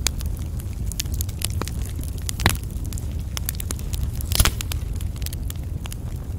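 Wood fire burning, crackling with many sharp pops over a steady low rumble; two louder pops stand out, about two and a half seconds and four and a half seconds in.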